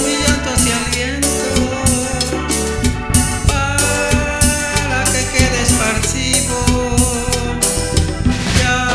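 Latin tropical dance-band music, with drum kit and percussion keeping a steady beat under held instrumental melody lines.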